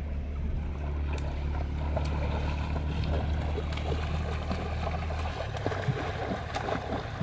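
Water splashing and sloshing as children wade and swim in a river, with more splashing near the end. Under it runs a steady low drone, like a distant engine, that fades about five seconds in.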